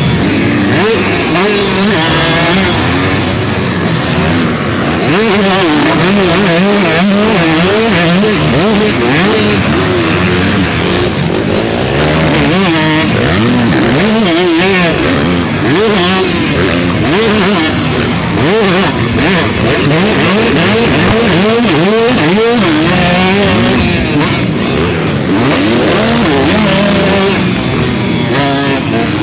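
125cc two-stroke dirt bike engine being ridden hard, revving up and backing off over and over. Its pitch rises and falls every second or so as the throttle is worked.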